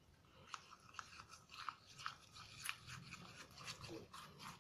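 A small utensil scraping and tapping against a container in quick, irregular light clicks, several a second.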